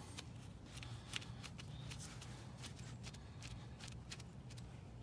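Faint, irregular clicks and rustles of hands pressing and smoothing a wad of chewed bubble gum into a puncture in a tire, over a low steady hum.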